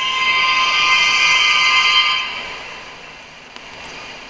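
Union Pacific diesel locomotive's air horn sounding one long, loud blast of a several-note chord as a grade-crossing warning. It holds for about two seconds, then dies away.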